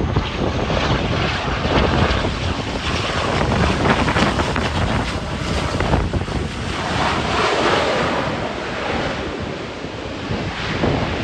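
Strong gusting wind buffeting the microphone, mixed with the sound of an ATR 72-600 twin-turboprop airliner.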